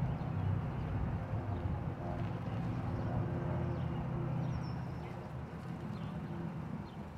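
Car engine idling, a steady low hum, with a few faint, short high chirps over it.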